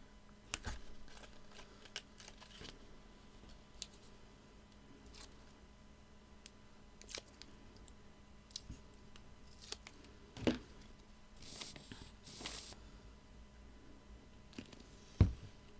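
Small craft handling: foam adhesive pads being peeled from their backing and pressed onto card toppers, with scattered light clicks, a couple of brief papery rustles, and a sharper knock on the table near the end.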